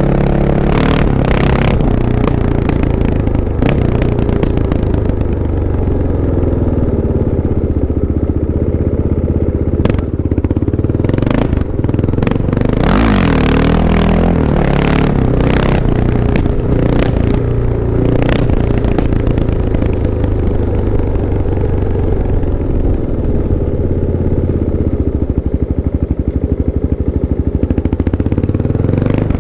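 Kawasaki KLX 650 motorcycle's single-cylinder four-stroke engine running, its pitch rising and falling as engine speed changes, with occasional short clattering noises.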